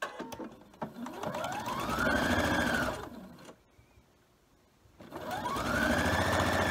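Electric sewing machine stitching a patchwork seam in two runs. Its motor whine rises in pitch as it speeds up, holds, then drops away and stops about three and a half seconds in. A second run starts and speeds up again about five seconds in.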